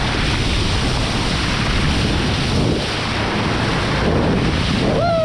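Wind buffeting the microphone over rushing sea water, a loud steady noise. Near the end a high call slides down in pitch.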